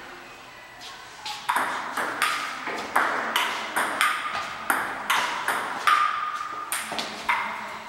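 A table tennis rally: the ball clicking off the paddles and bouncing on the table in quick alternation, roughly three hits a second. Some hits give a short ringing ping. The rally starts about a second in and ends near the end.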